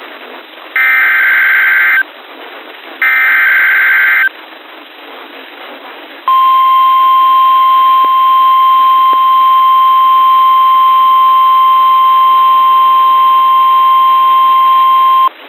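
Emergency Alert System header: two short buzzy data bursts of about a second each. Then the NOAA Weather Radio 1050 Hz warning alarm tone sounds steadily for about nine seconds, heard through a narrow radio-like band. Together they announce a severe thunderstorm warning.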